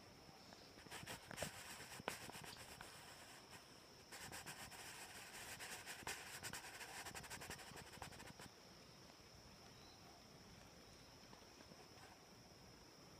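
Near silence with a faint, steady high-pitched drone. Two stretches of dense crackling and scratching fill roughly the first eight seconds, broken by a short pause about three and a half seconds in.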